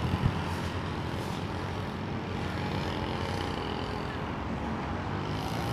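Distant RC foam plane running on drone motors and propellers: a faint whine that drifts slightly in pitch over a steady low rumble, with a couple of brief knocks just after the start.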